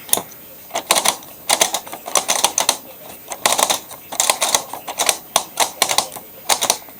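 ELIN WA 14 M washing machine making irregular clusters of sharp mechanical clicks and rattles, with no steady motor hum underneath.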